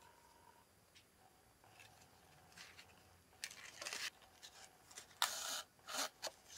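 Black card stock rustling and scraping as it is handled and a ribbon is threaded through slits in it: a few short rustles, the longest and loudest about five seconds in.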